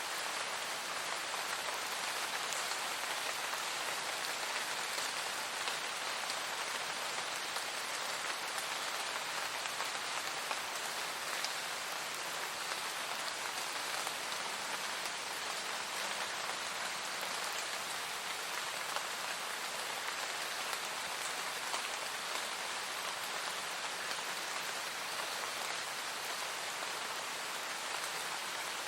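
Steady, even rain falling, a continuous hiss of drops with no thunder or music.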